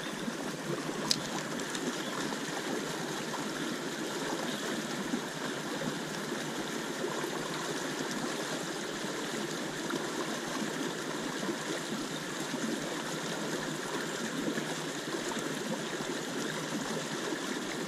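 Steady rush of stream water running past, with a single click about a second in.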